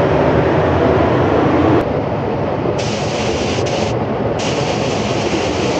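Paint spray gun hissing as the last coat goes on small parts: one short burst about three seconds in, then a longer one starting about a second later and running on, over a steady low rushing noise.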